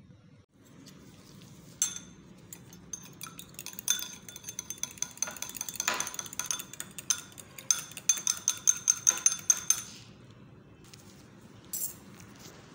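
A metal utensil beating a raw egg in a small glass bowl, a quick run of clinks against the glass with a bright ring. The clinks stop about ten seconds in, and one last short clink follows near the end.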